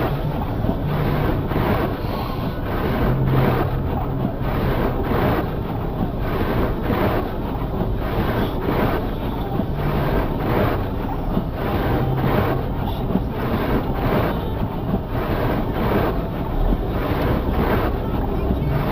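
Blizzard wind buffeting the microphone, a steady rushing noise with soft regular thuds about twice a second.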